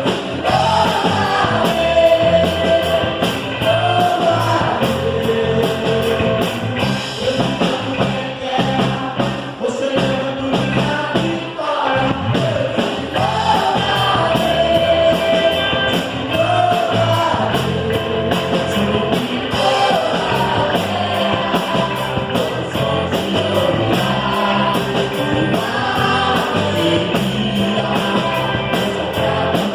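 Worship band playing a song with singing, driven by a drum kit beating a steady rhythm.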